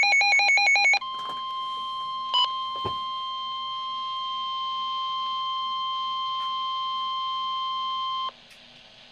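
NOAA Weather Radio emergency alert: a loud second of rapidly warbling digital data tones (the end of the SAME header), then the steady single-pitch 1050 Hz warning alarm tone for about seven seconds, which cuts off sharply and leaves faint radio hiss. It signals a severe thunderstorm warning. A short extra beep sounds over the tone about two and a half seconds in.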